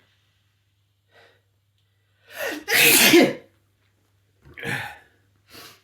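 A man sneezing once, loudly, about three seconds in, with a short build-up just before it, set off by snuffed Chhinkni herbal sneezing powder. Two shorter, quieter sounds follow near the end.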